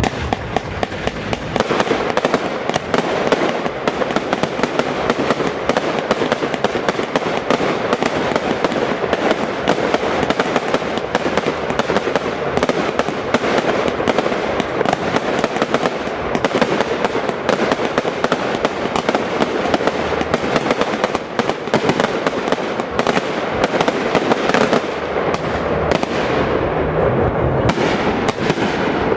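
Fireworks display: a dense, continuous crackle of many small bursts.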